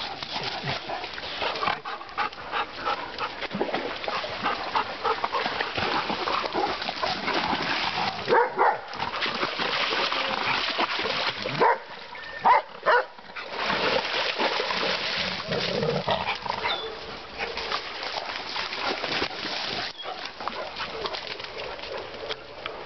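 Dogs splashing through a shallow stream, with a few loud barks around the middle.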